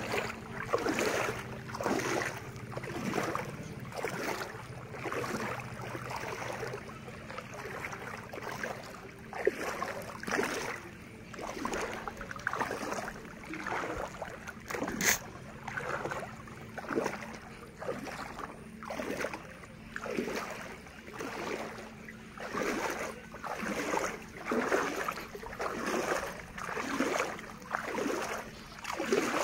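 Floodwater swishing and splashing in a steady rhythm, about once a second, from someone moving through the water. A faint steady hum lies underneath, and there is one sharp click about halfway through.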